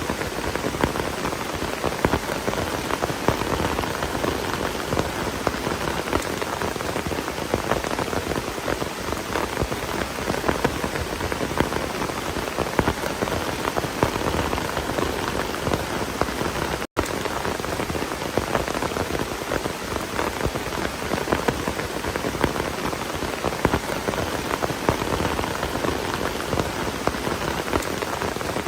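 Heavy rain falling steadily, a dense even hiss dotted with many small drop impacts. The sound cuts out for an instant a little past halfway.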